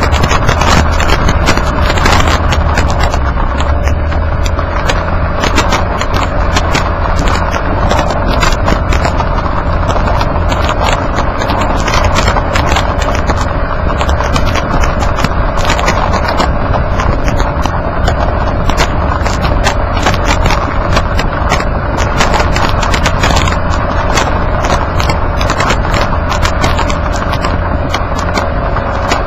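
Road noise from under a Nissan Kix driving on an unpaved road: loud tyre and underbody rumble with constant clicking of grit and small stones against the underside, and a steady hum.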